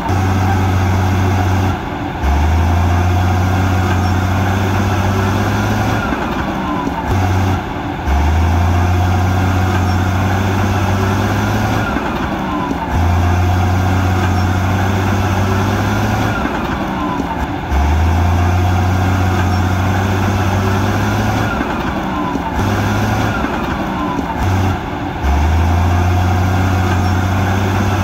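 Heavy diesel earthmoving machinery working, its engine drone loud and steady with short dips every five seconds or so. A thin falling whine recurs at about the same spacing.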